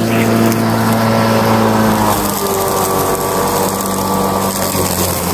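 Snapper 82-volt cordless electric walk-behind mower running, its motor and spinning blade giving a steady hum as it cuts and mulches very long grass full of fallen leaves. The pitch drops slightly about two seconds in.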